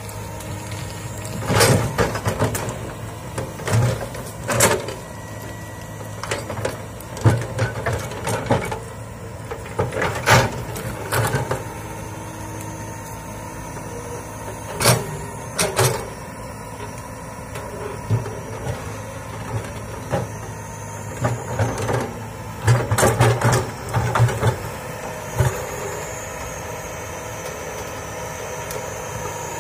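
Komatsu hydraulic excavator's diesel engine running steadily while the machine clears brush, with irregular sharp cracks and knocks as the bucket digs through undergrowth and soil.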